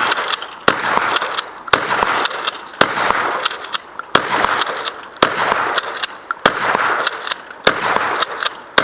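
A string of gunshots, most likely from a 12-gauge Mossberg 500 pump-action shotgun, firing about once a second. Each is a sharp crack followed by a lingering echo, with lighter clicks between the shots.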